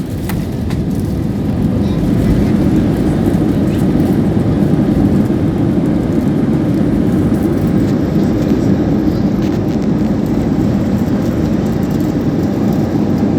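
Steady, loud rumble of jet engines and airflow heard inside the cabin of an Airbus A320neo during landing. It grows louder about two seconds in and then holds.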